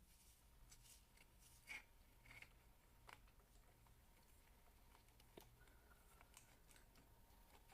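Faint, scattered soft scratches and clicks of ASMR ear cleaning on a microphone, over a low steady hum.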